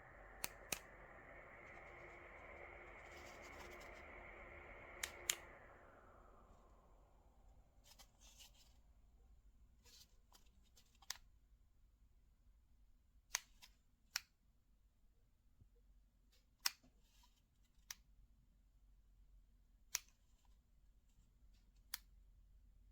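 Small flush-mount ceiling fan running with a steady airy whoosh that fades away over a couple of seconds as the fan winds down. Scattered sharp clicks follow, a second or two apart.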